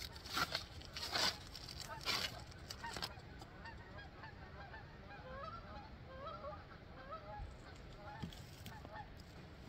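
A few sharp rustles and knocks of close handling in the first three seconds, then many short, faint bird calls one after another, like the honking of a flock of geese.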